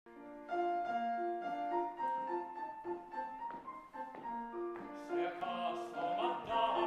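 Grand piano playing an accompaniment of short, separate notes; about five seconds in, an operatic singing voice with vibrato joins it.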